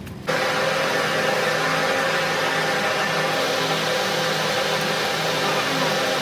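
A machine running steadily, a hiss over a low hum, switching on abruptly just after the start.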